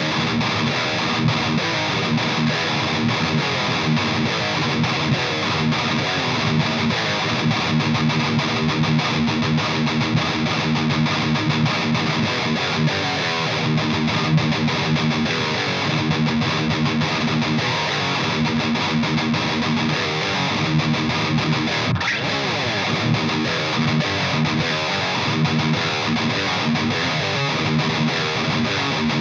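Distorted electric guitar played continuously through an EVH 5150 III LBX valve amp head, showing off its gain tone.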